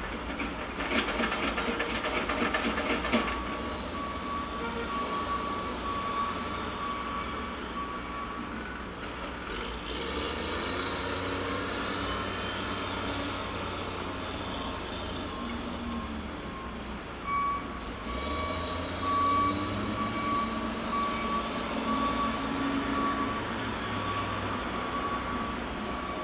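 Mulching-yard heavy machinery running: a continuous low engine rumble, with a loud burst of rattling clatter in the first few seconds and then a steady high-pitched whine over it for most of the time.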